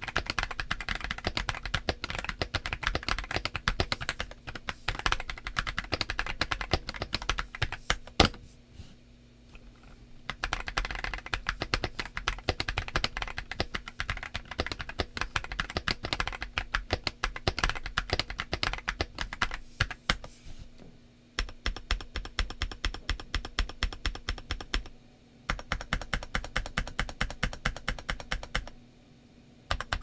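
Modded Feker IK65 mechanical keyboard with Akko POM Brown tactile switches and GMYK SA-profile ABS keycaps being typed on, a fast run of keystrokes broken by a few short pauses. There is one loud single clack about eight seconds in.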